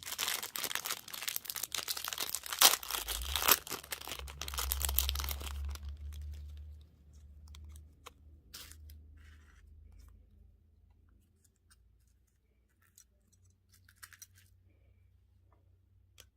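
Candy wrapper being torn open and crinkled for about the first six seconds, with one loud crackle near three seconds in; after that only a few faint crinkles and ticks.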